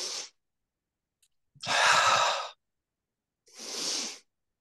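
A woman's audible breaths, paced with each pull of a Pilates reformer's straps. There are three in all: a short one at the start, the loudest about two seconds in, and a softer one near the end.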